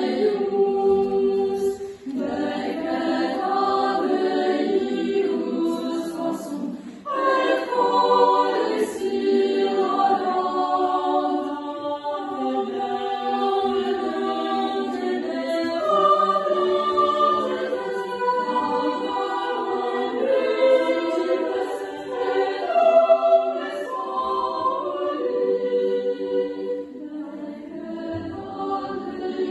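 A choir singing a cappella, several voices holding long notes together, with short breaks about two and seven seconds in.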